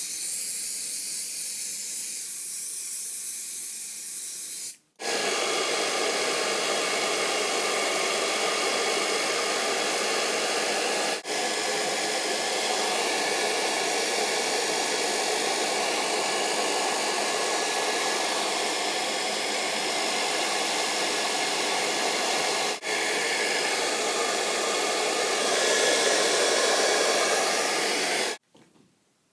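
Handheld hair dryer blowing steadily while setting hairspray in the hair. It cuts out for a moment three times and stops a second before the end.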